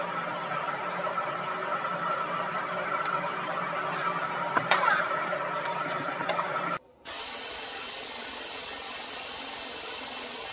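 Power tool motor whining steadily while the nut is run off the upper ball joint stud of a 2011 Ram Dakota's upper control arm, with a few light ticks about four to five seconds in. It breaks off sharply about seven seconds in, and a flat, even noise follows.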